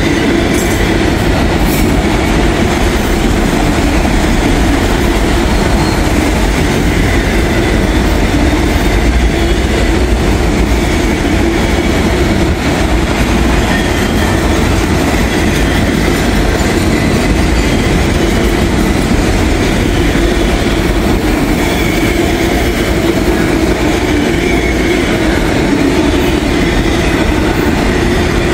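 Long freight train of empty autorack cars rolling past at close range: a steady rumble and clatter of steel wheels on the rails, unbroken throughout.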